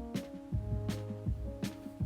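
Background music with a steady beat: sustained notes over a bass line, with a hit about every three quarters of a second.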